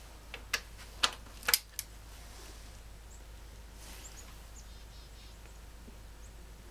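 Steel socket and extension clinking against an oil pump mounting bolt as the socket is fitted, five sharp metal clinks in the first two seconds, then faint light clicks as the bolt is turned with a socket wrench.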